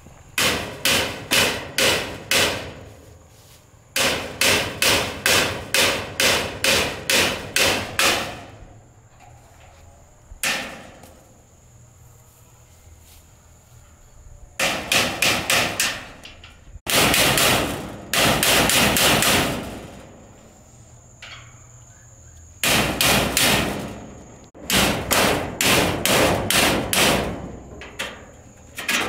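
Hammer striking the metal tailgate and hinge of an old pickup's cargo bed. The blows come in bursts of about three a second, with short pauses between the bursts.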